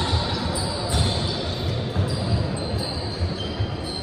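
Basketball game on a hardwood court: irregular low thuds of the ball bouncing and players' feet striking the floor, in a large sports hall.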